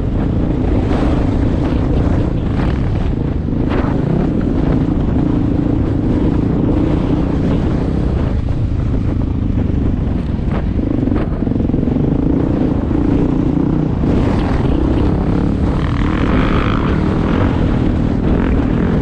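Dirt bike engine running under load while riding, its revs rising and falling with the throttle.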